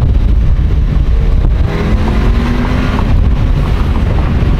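Cabin noise of a 2017 Audi A3 on a stage 2 tune, driving along: a steady, loud low rumble of engine and road, with a faint engine note climbing slightly about two seconds in.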